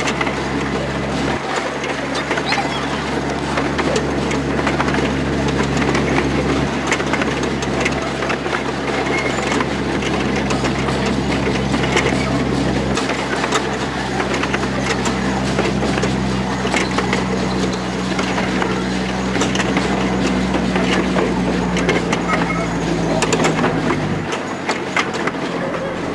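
15-inch gauge miniature railway train running, heard from an open carriage: wheels rattling and clicking on the track over a steady low hum. The hum changes about two seconds before the end as the train enters a wooden shed.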